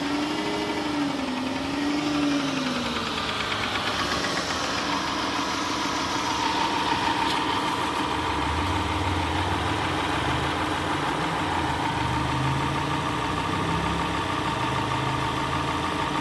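Chrysler Town and Country 4.0 V6 engine revved up and down twice, then running at a steady idle. It runs well just after being cleared of a hydrolock, with water and oil still being burned out of the cylinders.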